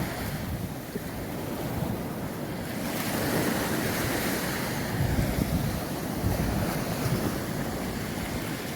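Sea waves breaking and washing up a sandy beach, with wind buffeting the microphone. A wave's wash swells up about three seconds in.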